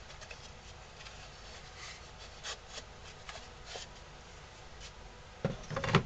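Wooden carved pieces being handled: faint scraping and light clicks, then a short cluster of louder knocks near the end.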